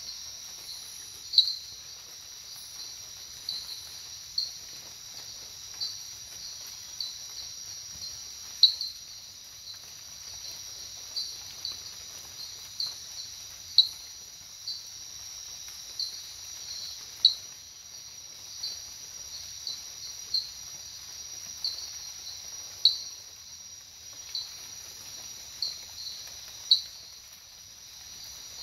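Nocturnal rainforest insects: a steady high-pitched trill with short chirps repeating irregularly about once a second, some noticeably louder than the rest.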